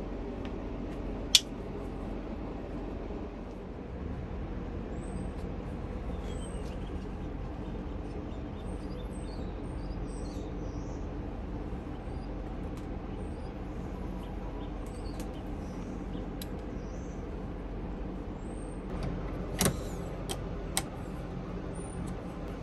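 A steady low machine hum, with sharp metal clinks from steel parts being handled: one about a second in and a couple more near the end.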